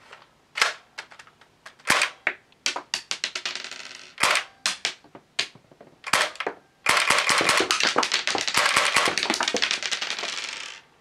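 Tokyo Marui Walther MPL gas blowback airsoft submachine gun firing with its cartridge-ejecting action cycling. First come separate single shots and a short quick burst, then a continuous full-auto string of about four seconds that stops abruptly near the end.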